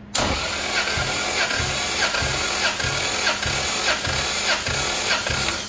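1.5JZ inline-six turned over on its starter motor with the spark plugs out for a compression test, a steady cranking whir with a regular pulse about two to three times a second. This is cylinder three, which reads weak at about 150 psi, against 175 and 180 on cylinders one and two.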